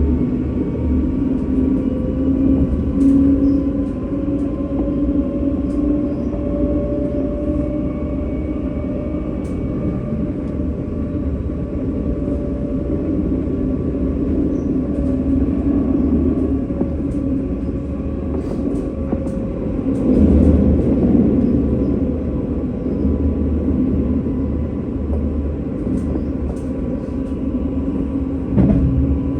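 Tram running on its rails: a steady low rumble with a humming motor tone that drifts slightly up and back down, and faint scattered clicks. It gets louder for a few seconds about two-thirds of the way through, with another short surge near the end.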